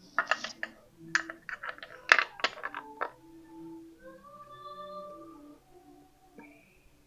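Metal clicks and clinks of a wheel spinner being handled and fitted by hand onto its adapter at the wheel hub, a quick run of them in the first three seconds, the sharpest about two seconds in.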